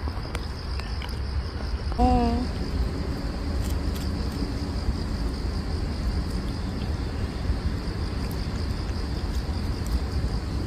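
Steady high-pitched trill of crickets or other insects, over a low rumbling background. About two seconds in there is one short wavering voiced call.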